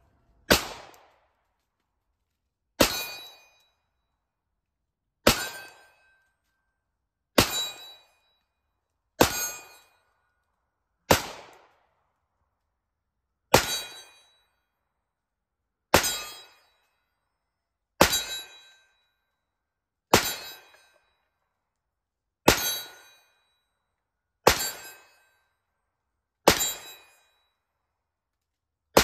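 Rost Martin RM1C 9mm compact pistol fired in slow, even shots, about one every two seconds, fourteen in all. Each shot is followed by a short metallic ring, the sound of steel targets being hit.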